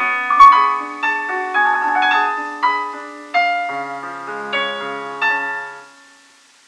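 Solo piano playing a slow phrase of chords under a melody, each note struck and left to ring; low bass notes join partway through, and the phrase dies away about six seconds in.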